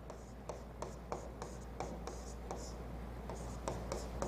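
Pen writing: a run of short, irregular scratching strokes and light taps, over a low steady hum.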